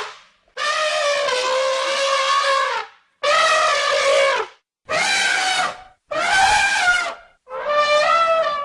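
Elephant trumpeting: five calls in a row, the first lasting about two seconds and the rest about a second each, with short gaps between them.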